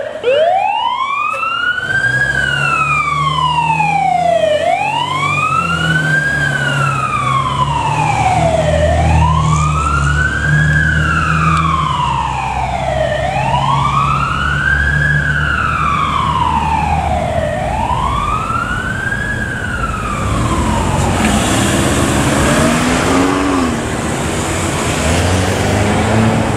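Fire engine's siren on a slow wail, rising over about two seconds and falling over about two, five times in a row, over the low hum of the truck's engine. About twenty seconds in the wail stops and traffic noise remains.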